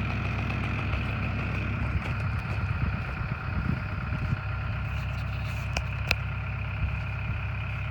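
An excavator's diesel engine idling steadily under a chainsaw's high, even whine as the back cut is made in a tree. Two sharp clicks come about three-quarters of the way through.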